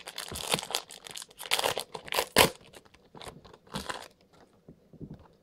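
Plastic trading-card pack wrapper crinkling and tearing as it is ripped open by hand, in a run of crackly bursts that is loudest a little over two seconds in and dies down after about four seconds.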